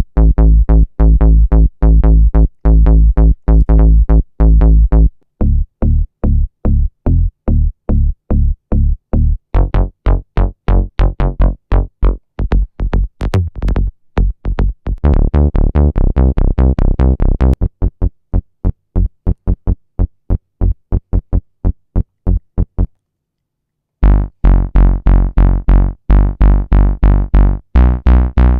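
Serum 2 synth bass preset demos: short, repeated bass-synth notes in a steady pulse. Each new preset changes the tone, and there is a brief silent gap about 23 seconds in before the next one starts.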